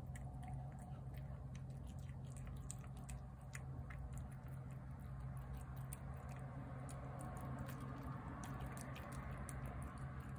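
A cat chewing wet pâté cat food from a plate: a steady run of small, quick mouth clicks over a steady low hum.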